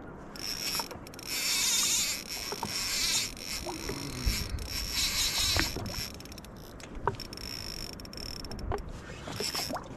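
Spinning fishing reel cranked against a hooked fish, its gears and line whirring in uneven bursts with a few small clicks.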